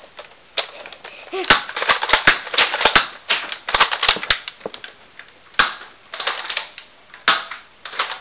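Nerf blasters firing foam darts: a quick run of sharp snapping shots and dart hits about a second and a half in, then single shots spaced a couple of seconds apart.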